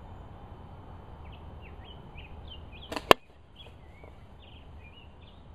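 A dart from a slingshot rifle smacks into a carved wooden mask about three seconds in: one sharp, loud hit, with a fainter click a split second before it. Small birds chirp throughout.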